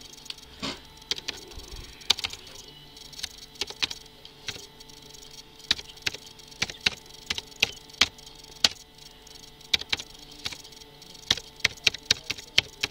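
Typing on a computer keyboard: irregular key clicks in short runs as a string of digits is entered.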